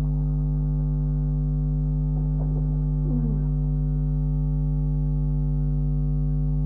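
Steady electrical mains hum: a low, unchanging buzz with a row of higher overtones, carried through the recording.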